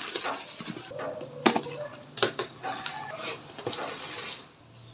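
Plastic bubble-wrap packaging crinkling and rustling as a mailer is torn open and a cardboard box is pulled out, with a couple of sharp cardboard knocks.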